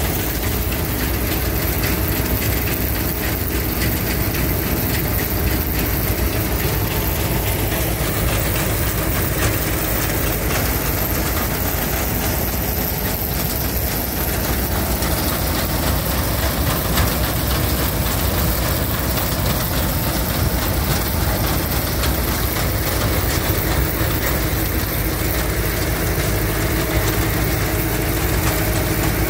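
An engine running steadily, with a low rumble.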